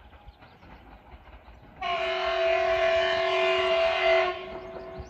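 Horn of an approaching Class 755 bi-mode multiple unit, sounded as one steady blast of about two and a half seconds, starting a little under two seconds in.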